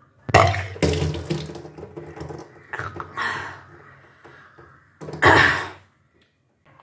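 A person retching and bringing up water in three gushes that splash down, the first one longest, as the stomach is emptied in the kunjal kriya cleansing practice.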